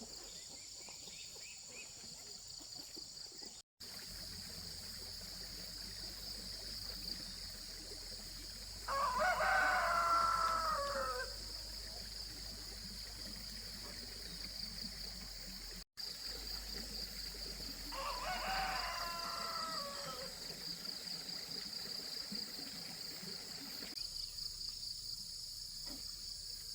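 A rooster crowing twice, about nine seconds apart, each crow about two seconds long and ending in a falling note, over a steady high insect buzz.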